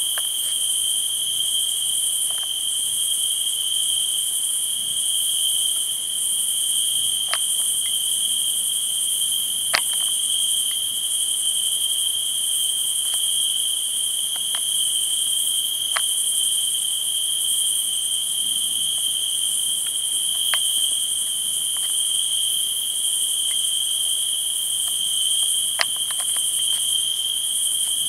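Night insects, crickets, chirring in a steady, continuous high-pitched chorus that never breaks, with a few scattered sharp clicks.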